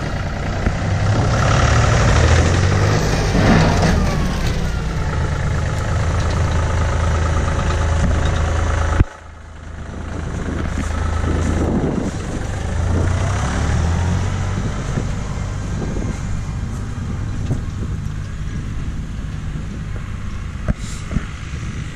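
John Deere loader tractor's diesel engine running under load while pulling a stranded limousine. The sound cuts off abruptly about nine seconds in; an engine then comes back and fades away.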